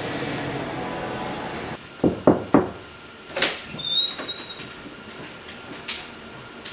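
Lift doors sliding with a steady mechanical hum, then three quick thumps, the loudest sounds, and a brief high squeak with a few clicks.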